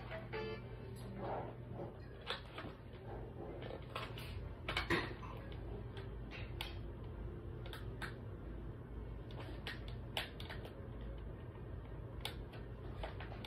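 Scattered clicks and knocks of plastic electronic toys being handled, the loudest about five seconds in, over a steady low hum. A toy's electronic tune cuts off right at the start.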